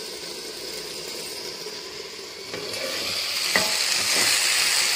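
Broccoli and potato curry sizzling in a frying pan, the sizzle growing louder about halfway through, as it is stirred; a metal spoon clinks against the pan once.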